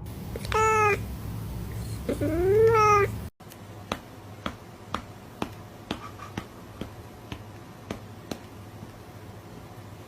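A cat meowing twice: a short meow, then a longer one that rises and falls. Then, after an abrupt cut, a series of sharp clicks roughly every half second.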